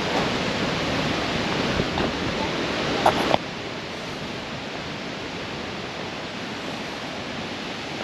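Steady rushing of a creek waterfall, an even hiss of water with no rhythm. A couple of short clicks come about three seconds in, and then the rushing drops abruptly to a quieter level.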